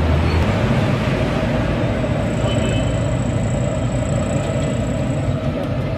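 Steady rumble of street traffic with no distinct events, and a faint high whine for a few seconds in the middle.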